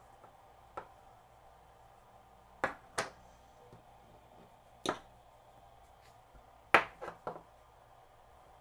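Sharp clicks and taps as a small cassette-deck roller part and a cotton swab are handled and set down on a hard workbench, about seven in all, the loudest a little before the end with two more following quickly. A faint steady hum runs beneath.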